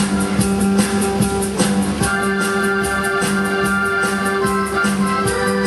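Instrumental music with a steady beat: held organ or keyboard chords over drums.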